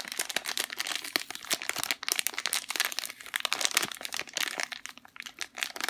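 Plastic packaging bags crinkling and crackling irregularly as squishy toys are handled and shifted in them.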